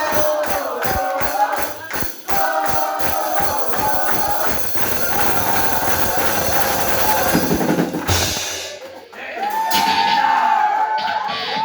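Live punk-rock band music: a steady drumbeat with cymbals under voices singing, which stops abruptly about eight seconds in. A voice follows, shouting or talking.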